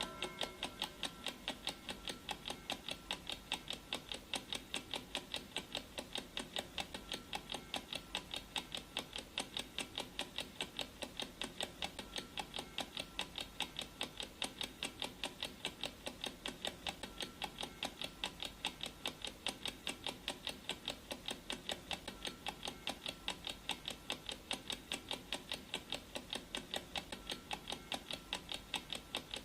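Clock ticking sound effect: steady, even ticks, a few a second, keeping time for a countdown timer.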